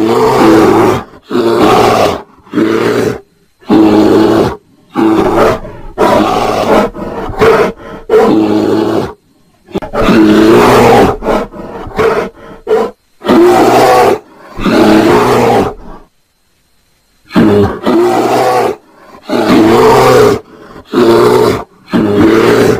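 A bear's loud roaring calls, repeated one after another in short bursts of about a second with abrupt silent gaps between them, and a longer pause about two-thirds of the way through. They are given as bear mating calls.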